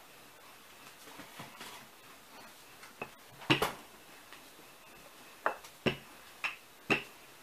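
Wooden rolling pin clicking and knocking as dough is rolled out on a wooden table: a run of about seven short, sharp clicks, starting about three seconds in, over a quiet room.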